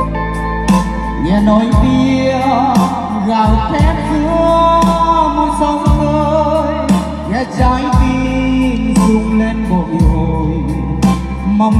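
A song with singing, a heavy bass line and regular drum hits, played loud through a stage line-array speaker system with subwoofers.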